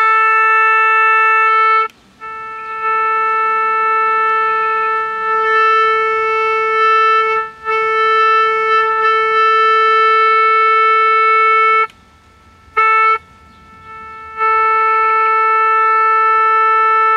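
Steady test tone with many overtones, at about 450 Hz, from the transistor radio's speaker as it reproduces the modulated 455 kHz IF signal fed in from an RF signal generator: the AM IF stage is passing signal. The tone drops out briefly a few times while the generator is retuned, is gone for a second or two near the end apart from a short blip, then returns.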